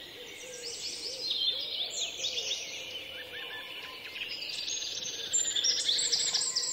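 Birdsong: several birds chirping and trilling over one another, louder in the second half.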